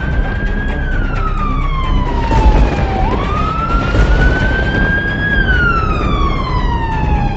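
Emergency siren wailing, its pitch sliding slowly down, up and down again, each sweep lasting about two and a half seconds. Underneath it is a steady low rumbling noise.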